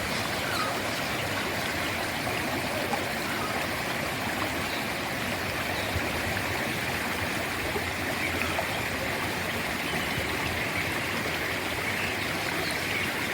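Mountain stream running over rocks, a steady even rush of water.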